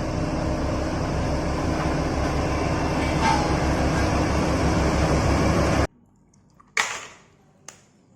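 A steady mechanical rumble with a fast, even pulse, which starts and stops abruptly and cuts off about six seconds in. It is followed by a short rush of noise and a click.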